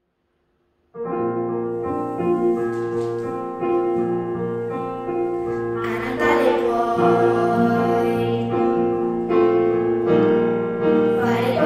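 Intro of a Christmas song played on digital piano with acoustic guitar, starting suddenly about a second in after silence. The music gets fuller from about six seconds in.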